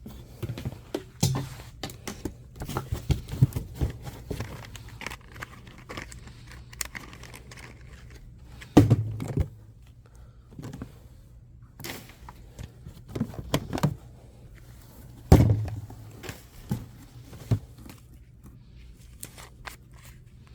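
Items being handled and rummaged through in boxes: rustling and crinkling packaging, scattered clicks and knocks, and two louder thuds of things being set down, about nine and fifteen seconds in.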